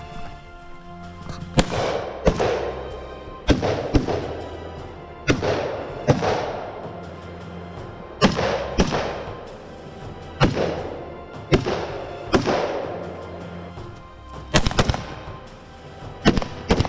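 Rifle shots fired in quick pairs, about fifteen in all, each crack followed by an echoing tail, typical of double taps on targets in an IPSC rifle stage.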